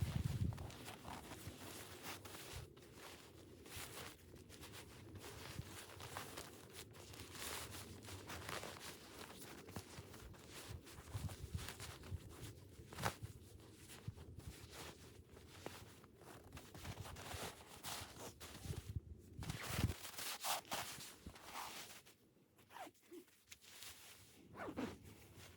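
Faint, irregular rustling with scattered light clicks and small knocks, the kind of noise made by handling gear or moving about.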